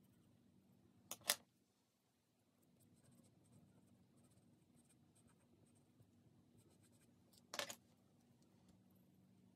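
Faint scratching of a black Nupastel stick stroked on sanded pastel paper, with two short sharp knocks, about a second in and again near the end.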